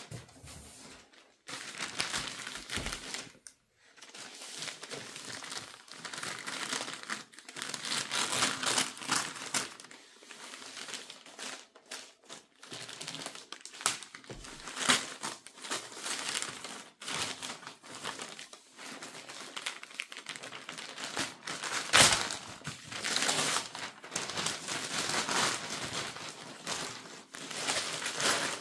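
Packaging crinkling and rustling in irregular bursts as a boxed die-cast model airliner is unwrapped, with one sharp click about three-quarters of the way through.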